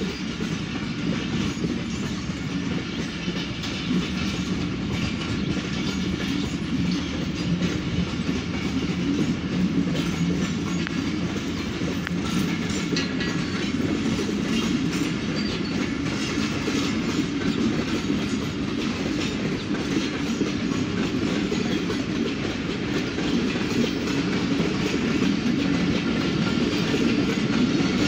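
Passenger coaches of a departing train rolling past, their wheels clattering steadily over the rail joints under a continuous rolling rumble that grows a little louder near the end.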